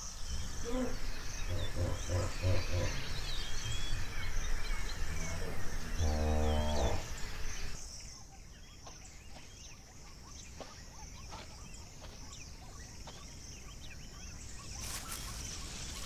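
Dawn savannah chorus: a large animal gives deep calls, a run of short grunts and then one longer call about six seconds in, over birdsong and a steady high insect trill. About eight seconds in the calls and birds drop away, leaving quieter insects.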